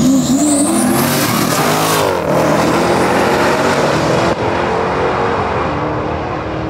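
Two Dodge muscle cars launching side by side on a drag strip at full throttle, engines revving up and dropping in pitch through upshifts as they pull away down the track.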